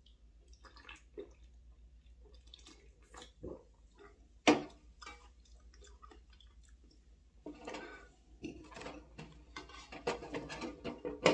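Soft drinking sounds from a can of soda, then one sharp clack about four and a half seconds in as the aluminium can is set down on a metal tray. From about seven and a half seconds on, chopsticks click and scrape in a bowl.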